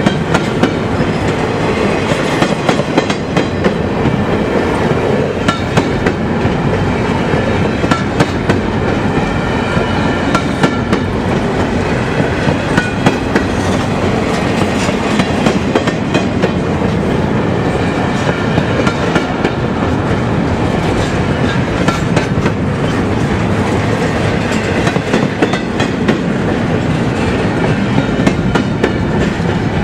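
Freight train rolling slowly past up a steep grade, its wheels clicking over the rail joints in a steady stream of clatter over a continuous rumble.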